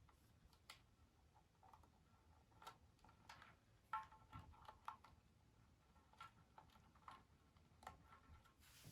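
Faint, irregular light clicks and taps from small hard parts being handled, a few with a brief ring, at uneven intervals.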